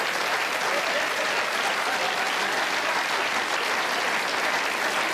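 Live theatre audience applauding steadily, a round of applause after a punchline.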